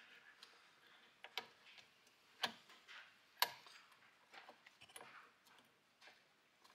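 Faint, irregular metallic clicks and taps, about a dozen, as a shift fork and gearbox parts are fitted by hand into the aluminium crankcase of a 1998 Honda CR125R two-stroke engine. The sharpest clicks come a little past two and three seconds in.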